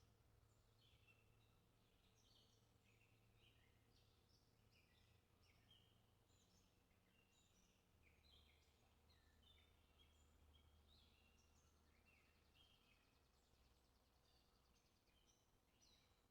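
Near silence, with faint, rapid bird chirps throughout over a low steady hum.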